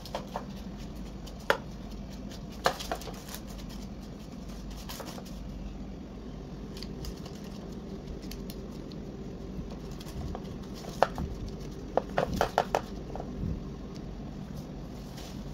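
Gloved hands pressing and spreading dough in a parchment-lined metal baking tray: scattered light taps and clicks with the odd paper crinkle, a cluster of them about twelve seconds in, over a steady low hum.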